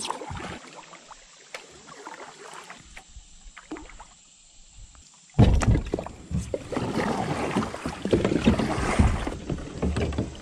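Plastic fishing kayak hull bumping and scraping against fallen logs blocking the river. A few light knocks at first, then about five seconds in a sudden loud, continuous scraping and clattering.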